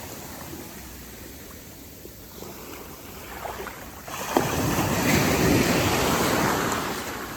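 Small sea waves on a beach. The wash is low for the first few seconds, then about four seconds in a wave breaks and surges up the shore, loud for a few seconds before easing off.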